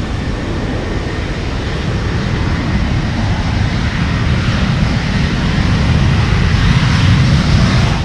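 Boeing 737's CFM56 jet engines at takeoff thrust during the takeoff roll: a deep, growling rumble that grows steadily louder.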